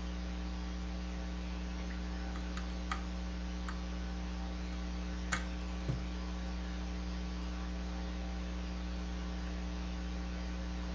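Steady electrical mains hum, with three faint small clicks of a screwdriver and screws as the analog board's screws are put back.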